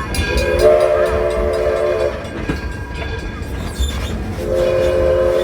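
Steam locomotive's chime whistle sounding a chord of several tones: one blast of about a second and a half starting half a second in, then a second blast starting near the end, over the steady low rumble of the moving train.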